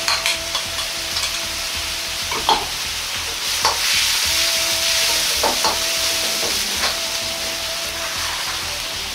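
Wok of daikon, tuna and seasoned water sizzling and bubbling over a high gas flame while a metal ladle stirs and scrapes it, with several sharp clanks of the ladle against the wok.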